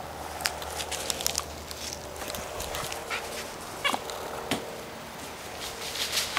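Newfoundland puppy mouthing and handling its squeaky hippo toy between squeaks: scattered soft clicks and rustles, with one brief faint squeak about four seconds in.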